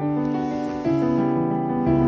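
Background piano music of held notes, a louder new chord coming in a little under a second in.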